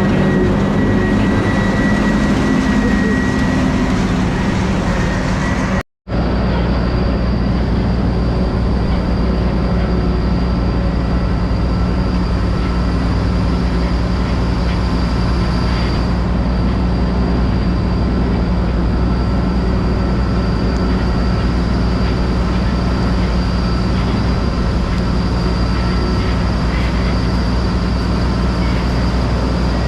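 Farm tractor engine running steadily, a constant low drone with a faint steady high whine. The sound cuts out for an instant about six seconds in, then carries on unchanged.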